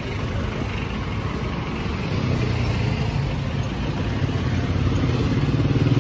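Street traffic, with a motorcycle-sidecar tricycle's small engine growing steadily louder from about two seconds in as it comes up close alongside.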